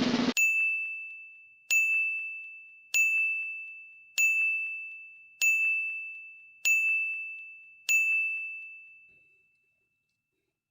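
A bright bell-like ding struck seven times at an even pace, about one and a quarter seconds apart, each ringing out and fading away.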